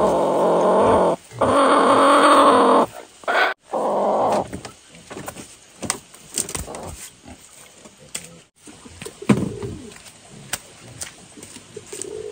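Broody hen on a straw nest, disturbed as eggs are taken from under her, giving three long, loud growling squawks in the first four and a half seconds. After that come softer, scattered short calls and light rustling.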